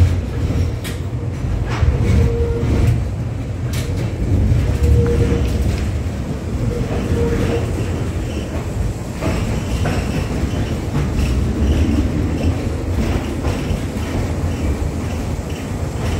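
LVS-86K articulated tram running between stops: a steady low rumble of motors and wheels on the rails, with sharp clicks as the wheels cross rail joints. A short steady tone comes and goes three times in the first half.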